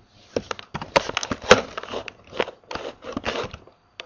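Computer keyboard typing: a quick, irregular run of sharp, loud key clicks close to the microphone, starting about half a second in and stopping just before the end.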